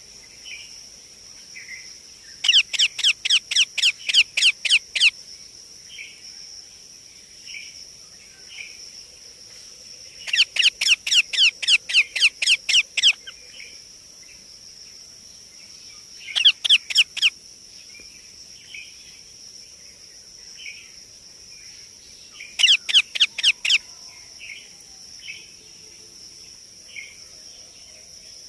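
Baby Indian ringneck parakeet calling in four loud bouts of rapid, evenly repeated harsh calls, about five a second, with softer single chirps between the bouts. A steady high-pitched whine runs underneath.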